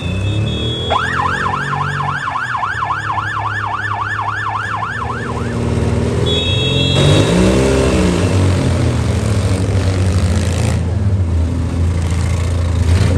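Emergency vehicle siren on a fast yelp, rising and falling about three times a second for several seconds before it stops about halfway through. Demolition derby vehicle engines run underneath the whole time, with a rev rising and falling near the end.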